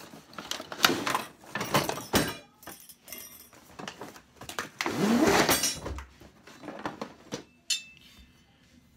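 Unboxing handling noise: a cardboard box sliding open and a plastic packing tray pulled out, with the rotisserie's metal spit forks clinking. A run of knocks and rustles, loudest about five seconds in.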